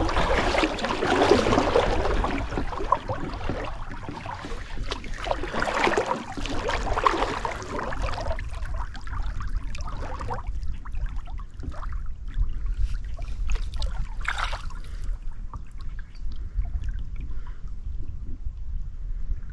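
Kayak paddle strokes: the blades dipping into the water and splashing, with water dripping off the paddle, denser for the first half and then sparser, separate splashes and drips. A low steady rumble runs underneath.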